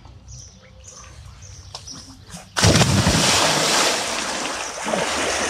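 Water splashing and rushing, starting abruptly and loudly about two and a half seconds in and then running on steadily; faint high chirps are heard before it.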